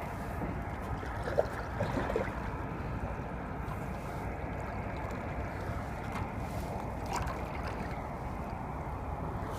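Water lapping and gurgling against a sailing canoe's hull as it glides in to land, with a few light knocks about one and two seconds in and again near seven seconds.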